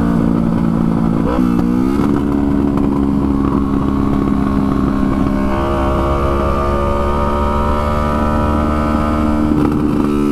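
Yamaha R3's parallel-twin engine under way on the road: the note dips and recovers about a second and a half in, steps up around the middle and climbs slowly, then drops near the end.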